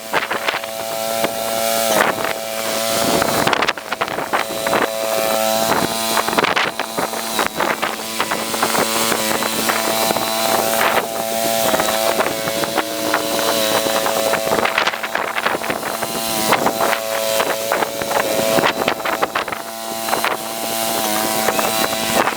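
Small garden tractor engine running steadily, its pitch dipping briefly and recovering several times as the load changes.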